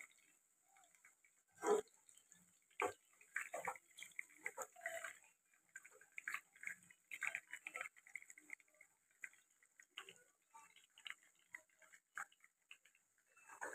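Faint, scattered clinks, scrapes and crackles of a slotted metal spoon and a wooden spatula lifting fried chicken pieces out of a pan of hot oil.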